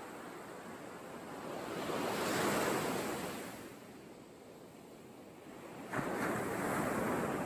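Surf washing onto a sandy beach, one wave swelling and fading, then another surge starting abruptly about six seconds in.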